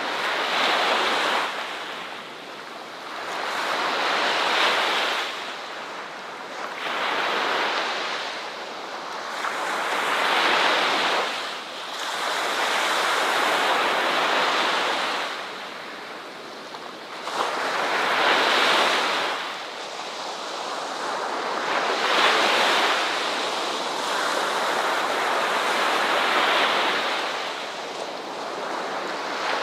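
Ocean waves breaking and washing on a shore, the surf swelling and fading in a slow rhythm of a wave every two to four seconds.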